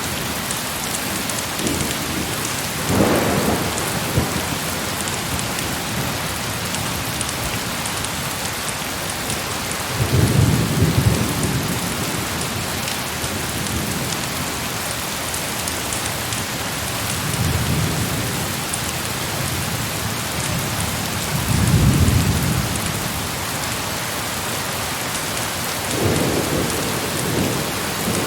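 Heavy rain falling steadily, with thunder rumbling low five times, the longest roll about a third of the way in.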